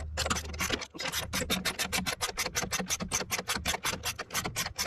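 Hand ratchet and socket extension backing out the grille's lower mounting bolt, the pawl clicking fast and evenly at about eight clicks a second, with a short pause about a second in.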